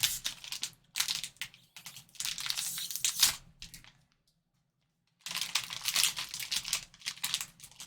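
Trading card pack wrapper being torn open and crinkled by hand, in two spells of crackling with a short quiet pause between.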